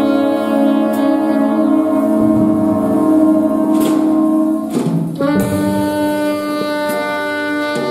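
High school jazz big band playing, with a saxophone solo over long held brass chords; the chord changes about five seconds in.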